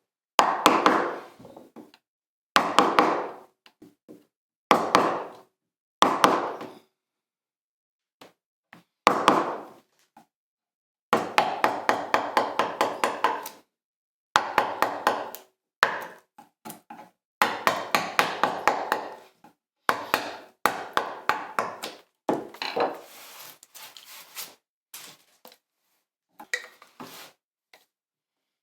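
Wood chisel struck with a mallet in runs of quick, ringing taps, up to about five a second with short pauses between. It is chopping waste out of a shallow recess in a hardwood bench top, cut to take a knot patch.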